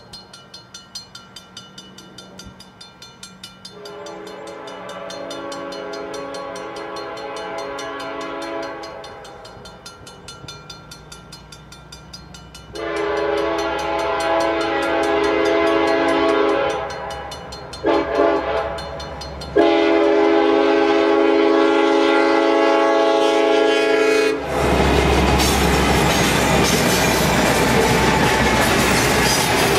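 A crossing bell dings steadily while a CN SD70M-2 locomotive's horn sounds the grade-crossing signal: long, long, short, long, getting louder as the train nears. From about three-quarters of the way in, the locomotives pass and a freight train of covered hopper cars rolls by with a loud rumble and clickety-clack of wheels over the rail joints.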